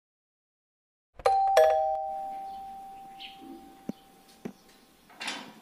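Doorbell chiming a two-note ding-dong, a higher note then a lower one, each ringing on and slowly fading. A few faint clicks and a short rustle follow near the end.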